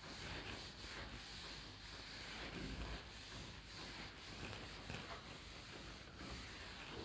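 Whiteboard eraser rubbing across a whiteboard in repeated wiping strokes.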